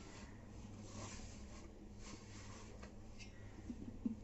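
Hand rubbing and kneading crumbly gram-flour dough against a stainless steel bowl: faint scratchy rubbing, with a brief louder knock near the end.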